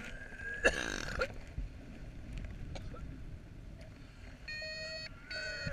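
A man retches loudly about a second in, mouth wide open, over wind rushing on the microphone. Near the end a paragliding variometer starts beeping again in short pitched beeps, the sign of climbing in a thermal.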